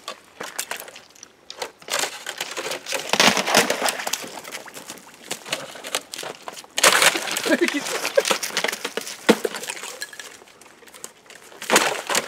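Irregular crunching footsteps on frozen ground, coming in uneven bursts.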